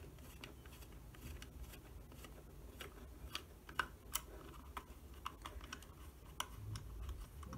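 Small screwdriver unscrewing a tiny screw from a laptop hard drive enclosure: faint, irregular clicks and ticks as the tip works in the screw head.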